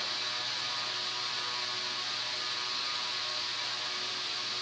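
Steady electrical hum with a constant hiss, unchanging throughout, with no distinct events.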